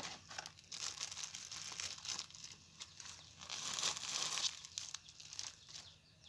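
Plastic parcel packaging crinkling and rustling as it is handled and pulled open by hand, with a spell of louder rustling about three and a half seconds in.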